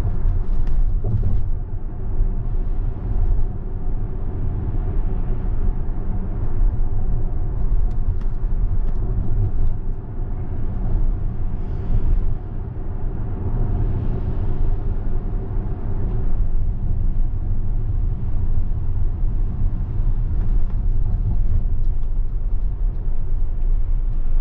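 Cabin noise of a Tesla electric car driving on wet pavement: a steady low rumble of tyres and road. An oncoming car passes about twelve seconds in.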